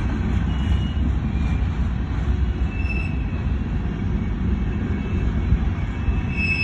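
Coal train's hopper cars rolling past at track speed, a steady low rumble and clatter of steel wheels on the rails.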